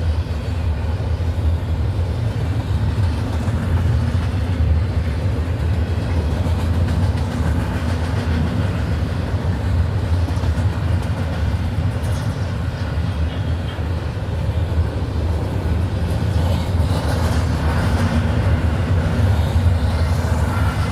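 CSX intermodal freight train I142 rolling past, with a steady rumble of its wheels on the rails.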